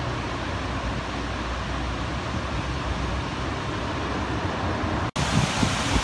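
Steady outdoor rushing noise with a constant low rumble. About five seconds in it cuts to the louder rush of a waterfall, with uneven low rumbling over it.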